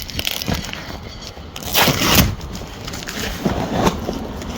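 Cardboard box and paper packaging being handled and crinkled, with the loudest rustle about two seconds in and another near the end, over a low rumble.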